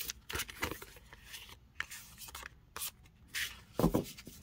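Tarot cards rustling and sliding as they are drawn from a spread deck on a cloth, with a couple of soft taps near the end as cards are set down.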